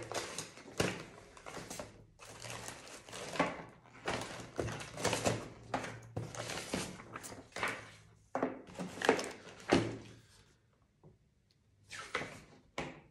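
Handling noise as detector accessories and their packaging are picked up and moved: irregular rustling with light knocks and thunks, pausing about ten seconds in and starting again briefly near the end.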